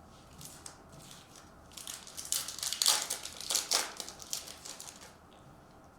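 Crinkling of a trading-card pack's foil wrapper as it is handled and opened, in a run of rustles from about two seconds in until near the end.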